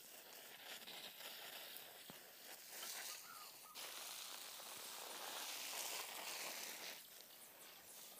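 Water from a garden hose spraying in a fine, rain-like shower over planting sacks and plants: a faint hiss that grows louder from about three seconds in and stops about a second before the end.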